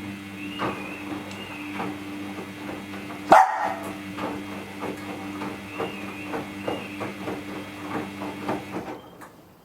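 Samsung front-load washing machine tumbling its drum during the wash cycle: a steady motor hum with a run of soft knocks about twice a second as the load turns over, and one sharp knock about a third of the way in. The hum cuts off near the end as the drum pauses.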